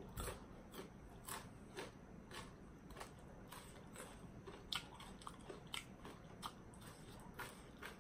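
Close-up chewing of crisp papaya salad: faint, irregular crunches and wet mouth clicks, a couple a second.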